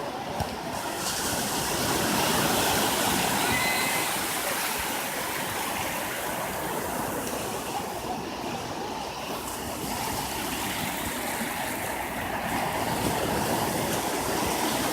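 Atlantic surf breaking and washing up the beach: a steady rush of waves that swells louder a couple of seconds in and again near the end.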